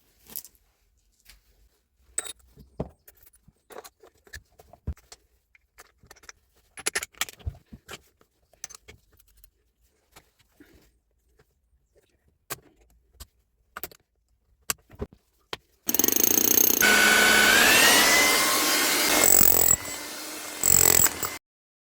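Scattered handling clicks and knocks, then the rebuilt Hilti TE 76 rotary hammer is switched on. Its motor runs up with a rising whine and runs loud for about three seconds, eases back, gives one short last burst and stops.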